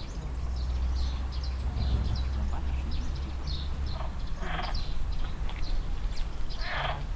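Edible frogs (pond frogs) croaking at a pond, two short rattling calls about four and a half seconds in and near the end, over many short high bird chirps. A low rumble runs under the first half.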